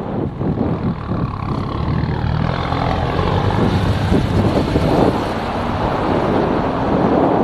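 Motorcycle engine running on the move, picked up by an action camera's microphone with wind noise. The engine note falls over the first two seconds, then the wind noise builds.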